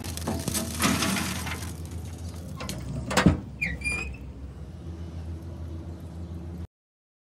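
Lit charcoal tumbling out of a chimney starter into a grill's firebox with a rustling clatter. A few seconds in come several sharp metal clanks and a short high squeak of metal on metal, over a steady low hum. The sound cuts off suddenly near the end.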